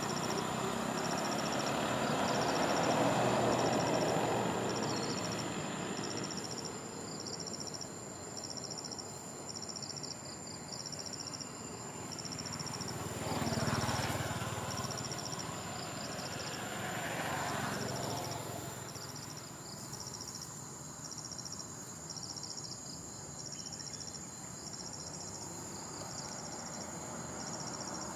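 Insects chirping in short high pulses roughly once a second over a steady high-pitched drone, while vehicles pass three times, each swelling and fading away.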